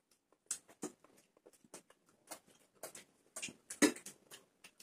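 Close-up eating sounds at a shared meal: chewing and lip-smacking in a string of short, irregular wet clicks, with light taps from a plastic serving spoon and plates. The loudest click comes a little before the end.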